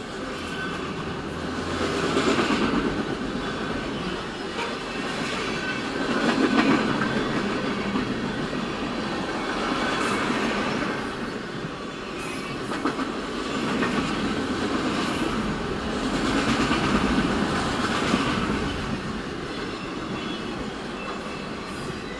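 Freight train cars rolling past on the rails with a continuous rumble and clatter of wheels, swelling and fading every few seconds, heard from inside a car's cabin.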